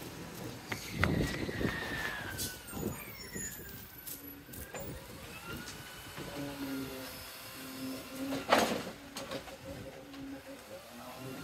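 Isuzu side-loader garbage truck pulling up with a descending squeal, then its hydraulic arm humming in stop-start runs as it lifts a wheelie bin to tip it into the hopper. A loud clatter comes about eight and a half seconds in.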